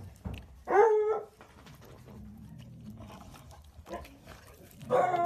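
A dog barks twice, about four seconds apart: one short call about a second in and another near the end.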